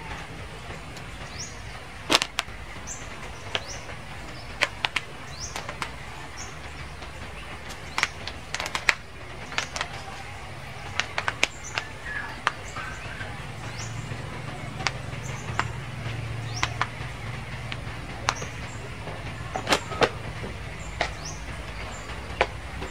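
Outdoor background: a steady low rumble, with a deeper hum swelling for a few seconds around the middle, many scattered sharp clicks and short, high rising chirps.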